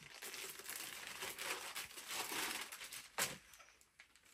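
Clear plastic clothing bag crinkling and rustling as it is opened and the folded scrubs are pulled out, with one sharper crackle about three seconds in, then only faint handling.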